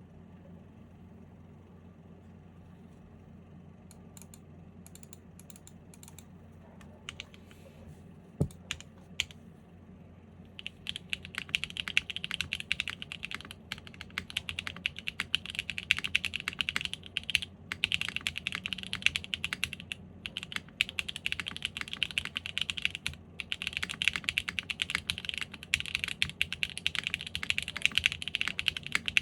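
Typing on a custom 7V mechanical keyboard with an aluminum plate, factory-lubed Haimu x Geon Black switches and GMK keycaps, with no foam dampening. For the first ten seconds there are only a few scattered keystrokes and a single low thump. From about eleven seconds in the typing is fast and continuous, with brief pauses.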